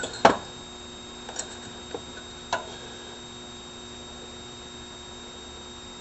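Small steel tools such as drill bits being handled: a few light knocks and clicks in the first few seconds, the loudest just after the start. A steady background hum runs underneath.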